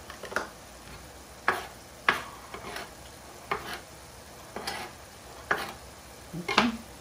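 Bok choy and onions frying with a faint steady sizzle in a frying pan, broken by irregular sharp clinks and knocks, some in quick pairs, about once a second; the clinks are the loudest sounds.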